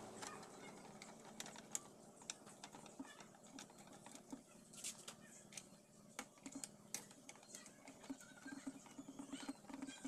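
Faint, scattered small clicks and light scrapes of a screwdriver and parts being handled at a CRT TV's power-supply board. A soft, rapid low pulsing comes in near the end.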